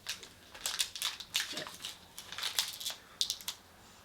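A snack's plastic wrapper crinkling as it is opened and handled: a run of crackling rustles.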